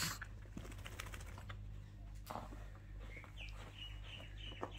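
Small dog rubbing and pawing at a fleece blanket: soft rustles and light claw scratches, with a sharp knock at the very start and a few short high chirps near the end.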